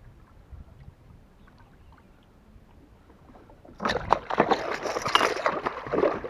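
A hooked peacock bass thrashing in the water at the side of a kayak: a loud run of splashing that starts about four seconds in and lasts about two seconds.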